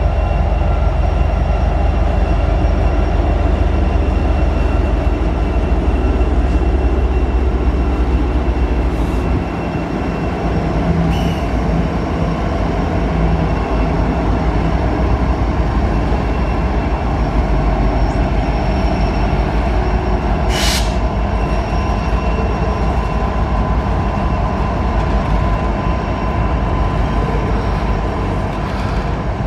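Freight train rolling past at close range: a steady, loud rumble of wheels on rail with faint high ringing tones from the wheels. The deep rumble eases about nine seconds in, and there are two sharp clanks later on.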